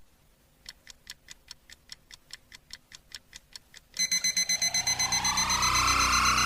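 Fast, even ticking, about five ticks a second, then about four seconds in a loud rising electronic sweep cuts in as the start of music.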